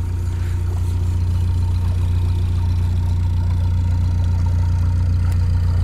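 Narrowboat's diesel engine running at a slow, steady pace as the boat passes close by: a steady low hum that grows a little louder.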